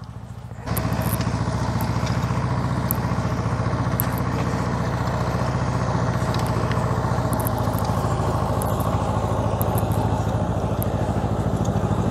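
Compact diesel tractor engine running steadily under load while driving a rear-mounted rotovator tilling the soil. The sound starts abruptly about a second in.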